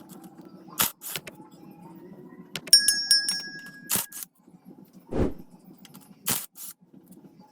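Metal tools and engine parts clinking and knocking on a workbench: sharp clicks, one strike that rings briefly with a clear metallic tone a few seconds in, and a dull thud about five seconds in.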